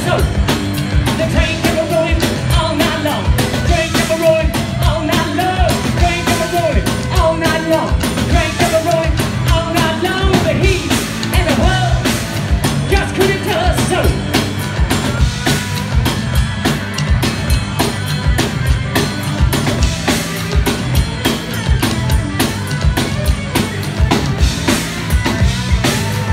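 Live rock band playing at full volume: electric guitars and bass over a drum kit keeping a steady beat, with a man singing lead.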